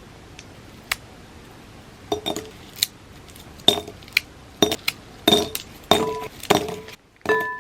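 A series of about eight sharp clinks on a bowl, each with a short ringing tone, starting about two seconds in: dishware being handled while preparing a bowl of cereal.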